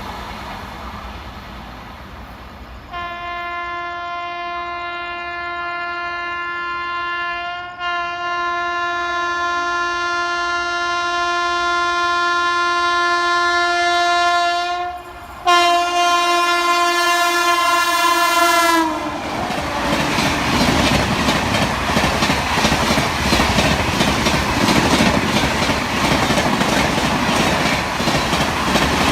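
Electric locomotive horn (WAP-7), one long shrill note held for about sixteen seconds with two brief breaks, its pitch dropping as the locomotive passes. Then the express train goes by at full speed, with loud, continuous wheel-on-rail noise and clickety-clack over the joints.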